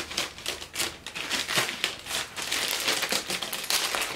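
Paper wrapping crinkling and rustling in quick, uneven crackles as a wrapped book is pulled open by hand.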